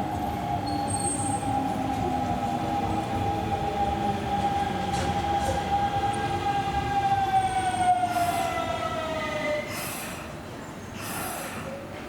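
Kintetsu electric commuter train slowing at the platform: the motor whine from its electric drive falls steadily in pitch and dies away about ten seconds in, as the train comes to a stop. Short bursts of hiss come near the end.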